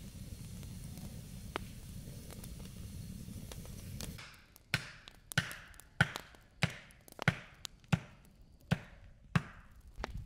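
A wood campfire crackling faintly over a low steady rumble. About four seconds in, that gives way to a run of about nine sharp, evenly spaced knocks, roughly three every two seconds, each with a short ring after it.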